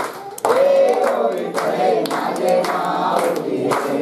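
A mixed group of men's and women's voices singing a devotional song to Ganesha together, with hand claps keeping time. The singing picks up again after a short break at the very start.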